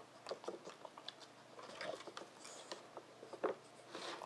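Boston terrier nosing and mouthing the wooden blocks of a dog puzzle game: a string of light, irregular taps and knocks on wood, the sharpest about three and a half seconds in.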